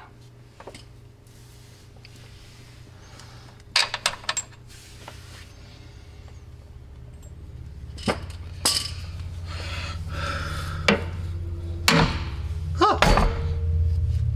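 Metal clinks, then several sharp hammer blows on steel, a few seconds apart: a hammer knocking the outer tie rod end out of a C5 Corvette's steering knuckle. A low steady hum grows louder behind them.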